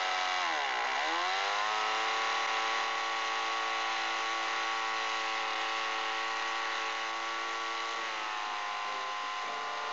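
Small model diesel engine in a gauge 1 Class 47 diesel-electric locomotive, just started, running fast and steady; its revs sag and pick up again about a second in.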